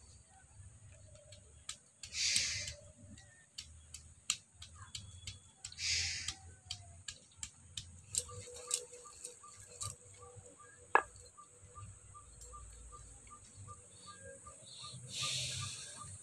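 Hand stone crushing and grinding garlic cloves on a wet slab: scattered taps and knocks, the sharpest about two-thirds of the way through, and a few short rasping strokes of stone on stone. Behind it is a steady high insect whine, and in the second half a soft ticking call at about two ticks a second.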